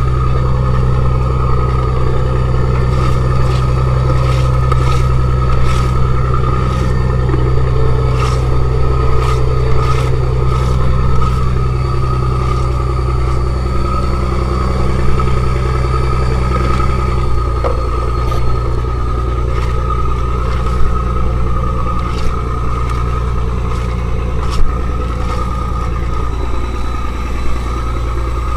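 Fishing boat's engine running steadily, a loud low drone whose note shifts slightly a little past halfway, with scattered clicks and scrapes of the catch being handled and sorted on the deck.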